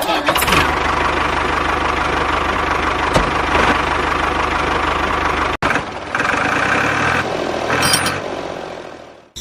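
Motor running steadily. It cuts off abruptly about halfway, starts again, and fades away near the end.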